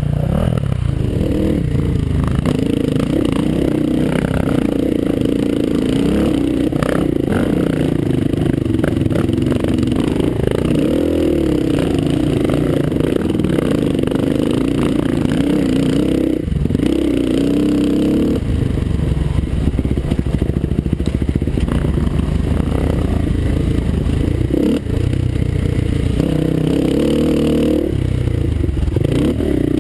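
Kawasaki KLX dirt bike's single-cylinder four-stroke engine under way on a trail ride, its note rising and falling as the throttle opens and closes, with a couple of brief dips.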